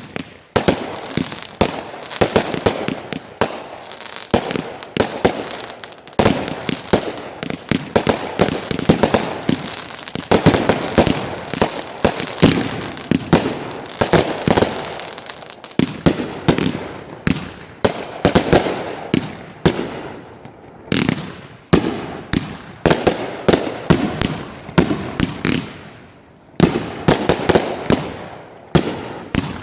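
Fireworks going off in a dense barrage: many sharp bangs and crackles a second, with a few brief lulls.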